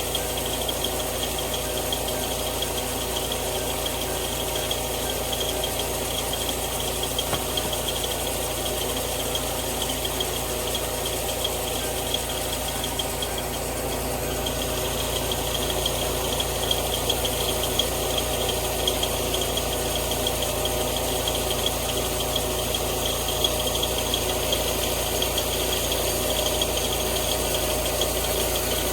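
Homemade sawmill running steadily, its motor holding an even drone while the blade cuts through a log. The sound dips and shifts slightly about halfway through.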